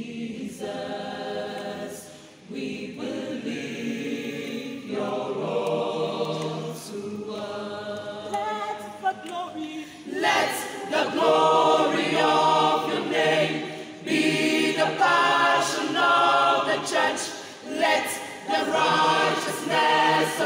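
A choir singing together, many voices in unison, growing louder about halfway through.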